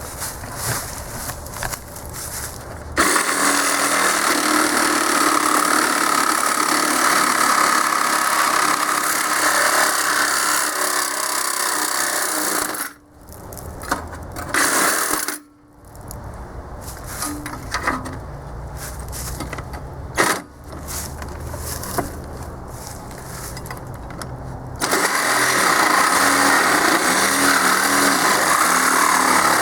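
Cordless reciprocating saw with a metal-cutting blade sawing through the steel air tank of a compressor. It runs loud in long stretches, stops briefly twice near the middle, runs quieter and rougher with knocks, then goes loud again near the end.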